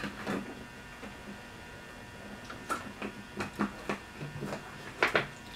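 A large plastic water jug handled and its cap twisted open, with a scattered series of faint plastic crackles and clicks, most of them in the second half.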